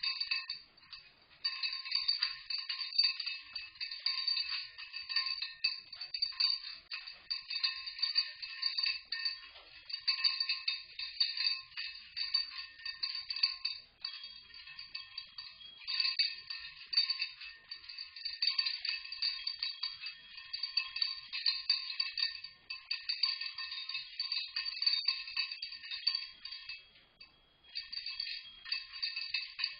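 Cockatoo ringing the small metal bells of a cage toy over and over: a continuous, irregular jangling, with a brief lull near the end.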